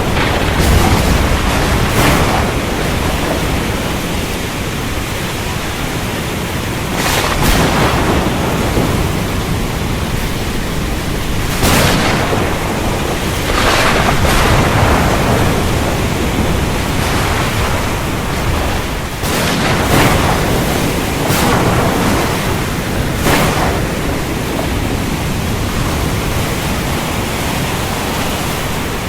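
Heavy rain falling steadily, with several sharp thunder cracks spread through it.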